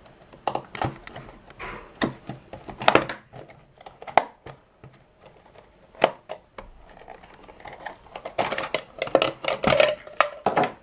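A speedcube's packaging box being opened and handled by hand: irregular clicks, taps and short scraping rustles, with brief pauses between.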